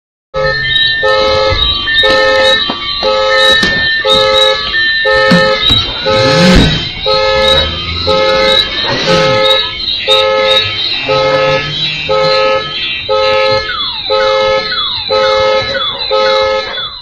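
Loud electronic tones pulsing a little more than once a second, layered with higher steady tones. A rising-and-falling sweep comes near the middle, and quick falling chirps repeat in the last few seconds.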